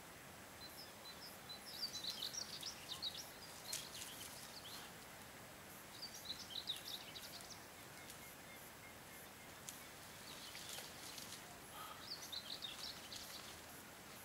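A songbird singing short, quick phrases of high chirping notes three times, about every five seconds, over a steady outdoor background hiss, with a couple of faint clicks.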